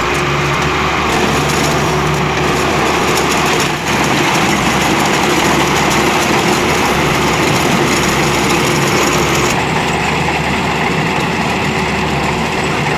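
Osaka combine harvester running steadily, its engine and threshing gear going under load as bundles of cut paddy are fed into the header to thresh the grain, with a brief dip about four seconds in.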